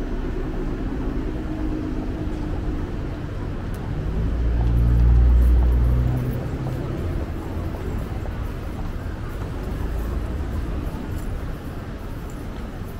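City street traffic noise with a vehicle's engine passing close, its low rumble swelling to the loudest point about five seconds in and then fading.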